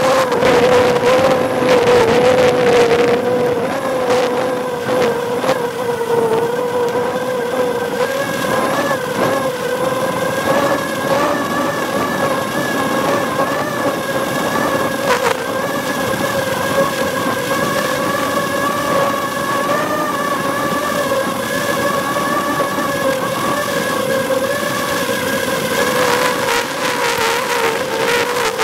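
Drone propellers and motors running with a steady high whine over a rushing of air, heard from the drone's own camera while it flies.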